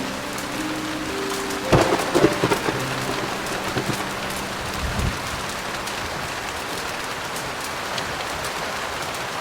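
Steady heavy rain, with a thunderclap about two seconds in: a quick run of sharp cracks followed by low rumbling that dies away by about five seconds. Soft piano notes fade out just before the thunder.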